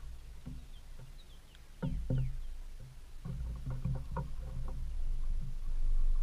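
White-tailed deer feeding close to the microphone: low rumbling with bunches of soft knocks and crunches from grazing and chewing, loudest about two seconds in and again a little past the middle. A few faint falling bird chirps come between one and two seconds in.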